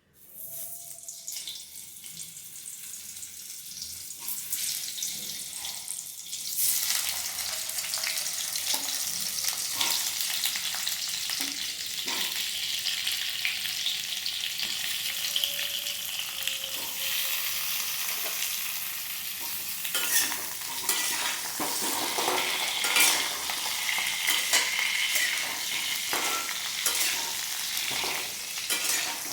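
Diced potatoes frying in hot mustard oil in a kadai: a steady sizzle that grows much louder about six seconds in, with the clicks and scrapes of a spatula stirring them.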